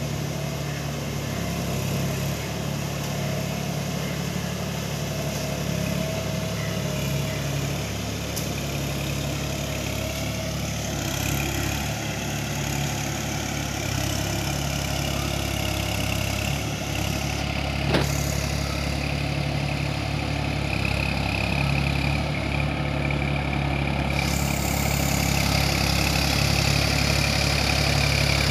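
New Holland 4710 tractor's three-cylinder diesel engine running steadily, growing louder near the end as the tractor comes closer. A single sharp click partway through.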